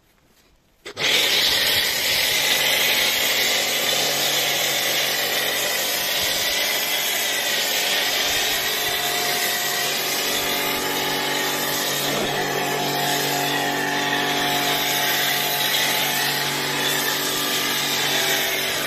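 Kärcher K4 Full Control household pressure washer starting up about a second in and running steadily: the pump motor hums under the hiss of active foam spraying from the foam nozzle.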